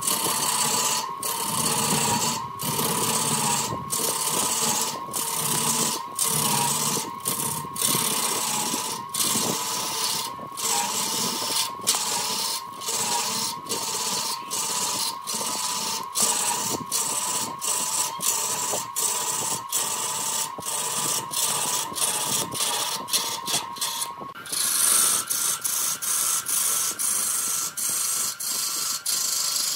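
Wood lathe running with a steady, slightly wavering motor whine, and a hiss of a turning tool cutting the spinning wood, broken by many brief dropouts. About 24 seconds in, the whine steps up to a higher pitch.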